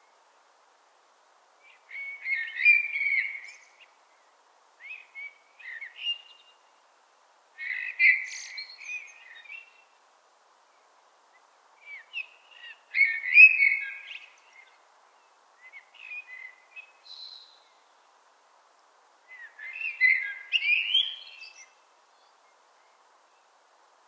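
Common blackbird singing: six separate phrases of about two seconds each, with pauses of a couple of seconds between, some phrases fainter than others.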